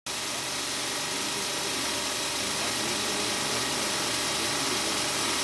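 KEF POD 10 industrial polishing machine running with a workpiece held against its spinning polishing mop: a steady, even hiss of buffing over the machine's motor.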